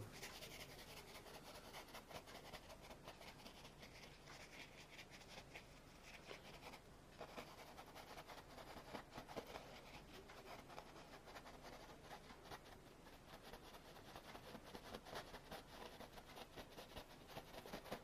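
Faint scratching of a small paintbrush rubbed back and forth on canvas, blending oil paint in many short strokes.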